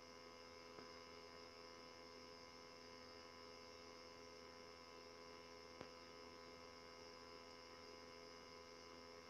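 Near silence: a steady low electrical hum, with a faint click about six seconds in.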